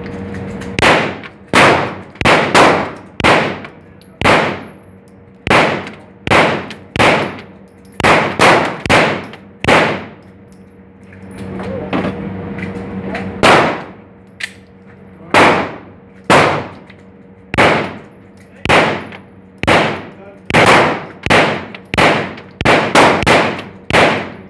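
9mm Glock 19 pistol shots at an indoor range, about thirty sharp reports fired in quick irregular strings, each with a short echoing tail, with a brief pause about halfway through.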